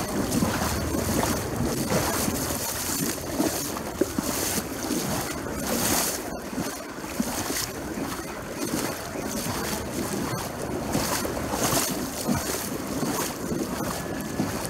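Wind buffeting a phone's microphone: a steady rushing noise that swells and fades in gusts.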